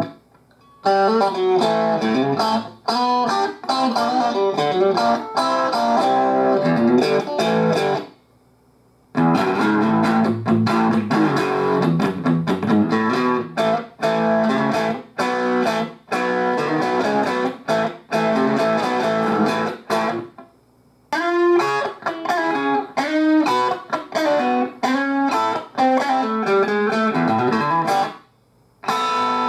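Electric guitar played through a 2011 Fender Super Champ XD 15-watt tube amp with 6V6GT power tubes: fast runs of single notes and chords in phrases, each broken off by a short stop, about a second long, near 8 s, 20 s and just before the end.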